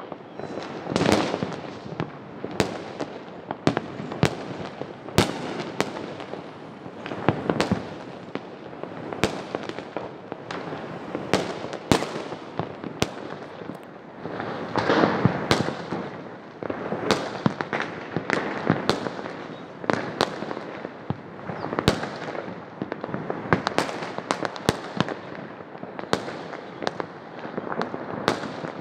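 Diwali fireworks and firecrackers going off all around: many sharp bangs at irregular intervals, about one or two a second, over a continuous background of more distant bangs and crackling.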